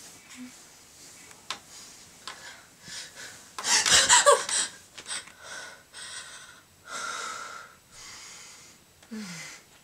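A woman gasps loudly as she jolts upright about four seconds in, then breathes hard in several deep, noisy breaths, ending with a short falling sigh. It is an acted gasp and panting of someone startled awake from a nightmare.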